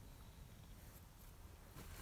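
Near silence, with only a faint steady hiss.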